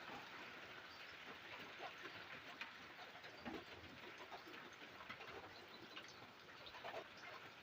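Faint steady rain hiss, with irregular individual drops and drips tapping through it.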